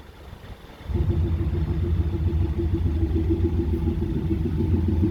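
Ford Mustang running with a Kufatec Sound Booster playing an emulated Maserati V8 note: a low, steady idle-like rumble that comes in suddenly about a second in.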